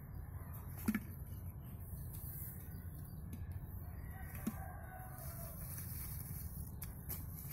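Palmyra palm sprouts clacking against a clay pot as they are packed into it by hand: two sharp knocks, about a second in and again about four and a half seconds in, over a steady low rumble. A rooster crows faintly in the middle.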